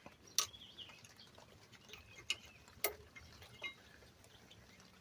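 A few sharp, separate metallic clicks and a brief scrape as an old brake pad is pried out of a rear caliper bracket with a flat-blade screwdriver.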